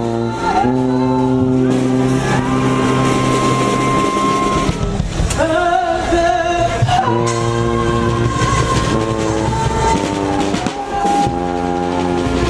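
Street brass band playing, the horns holding long sustained chords over percussion, with a singer's voice wavering over the band about halfway through.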